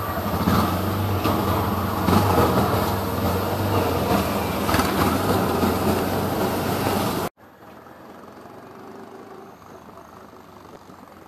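Small engine of a three-wheeler running, with road noise, heard from inside the open cab. About seven seconds in the sound drops suddenly to a much quieter steady hum.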